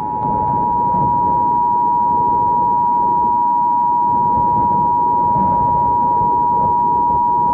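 Emergency Alert System attention signal: two steady tones near 853 and 960 Hz sounding together, starting abruptly and held, marking the start of an emergency message. A low, rushing noise bed runs beneath it.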